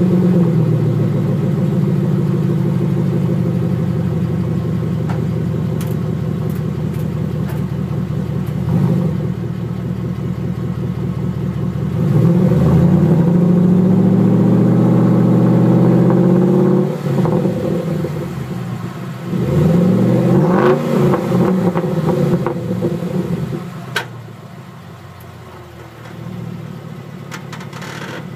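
2013 Ford F-150's 5.0 V8 (Coyote) through a 2.5-inch dual exhaust with a Magnaflow X-pipe, Dynomax bullet mufflers and turndown tips, extremely loud. It runs at raised revs, is revved up and held twice around the middle, then drops back to a quieter idle for the last few seconds.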